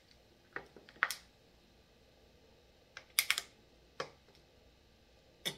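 Thin plastic water bottle crinkling and clicking as someone drinks from it: a few scattered sharp clicks, with a quick cluster about three seconds in.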